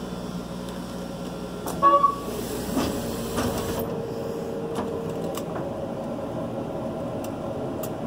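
Laser cutter running with a steady mechanical hum, a short loud clatter about two seconds in and a few light clicks later; part of the hum drops out a little before four seconds in.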